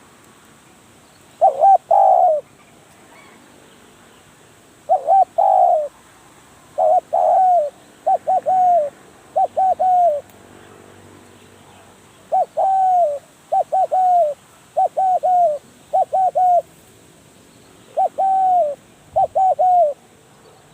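Spotted dove cooing: short repeated coos in groups of two or three notes, with pauses of a second or two between groups and a longer pause near the middle.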